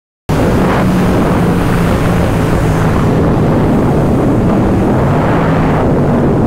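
Yamaha MT-07's 689 cc parallel-twin engine running steadily while the bike cruises, with wind rushing over the helmet-mounted microphone. The sound cuts in just after the start, following a brief silence.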